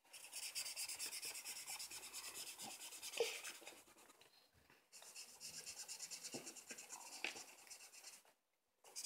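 Felt-tip marker scribbling on paper in quick back-and-forth colouring strokes, several a second, in two bouts with a short pause about four seconds in. A single light tap about three seconds in.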